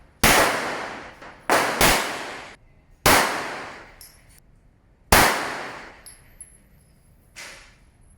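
9mm Glock pistol firing five shots on an indoor range, each shot ringing out with a fading echo; two come close together about a second and a half in, and a fainter shot follows near the end.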